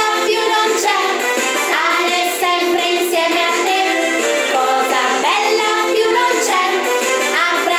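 A recorded children's song: children's voices singing a melody over an instrumental accompaniment.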